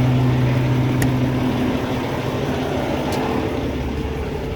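Loaded Freightliner semi-truck driving, its engine running with steady road noise. A low, steady engine tone fades about a second and a half in, leaving the road noise.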